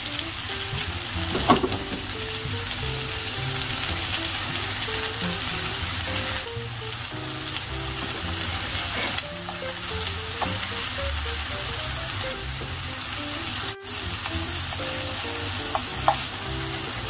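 Shimeji mushrooms and shishito peppers sizzling steadily in sesame oil in a frying pan as they sear, with a couple of short clicks.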